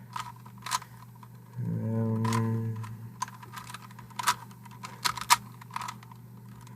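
A plastic Rubik's Cube being turned by hand: irregular sharp clicks and clacks as its layers snap round. A short, steady low hum sounds about two seconds in.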